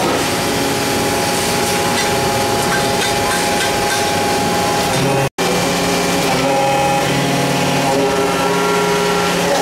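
Alpha 500-ton powder compacting press running while pressing powder-metal parts: a loud, steady machine noise with a constant hum in several pitches over a broad mechanical hiss. The sound cuts out for an instant about halfway through.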